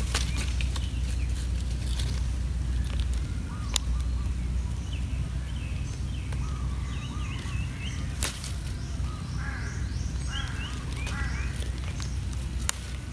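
Outdoor ambience with a low steady rumble, short chirping calls scattered through the middle, and three sharp clicks, the loudest a little past halfway.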